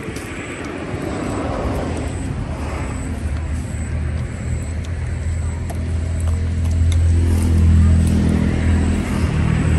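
A motor vehicle's engine running nearby with a steady low hum, growing louder in the second half.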